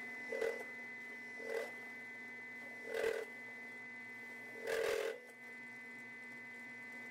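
Bench drill press motor running with a steady hum and whine, while a step drill cuts into a thin aluminium bulkhead to enlarge a small hole, biting in four short bursts, the last one the longest.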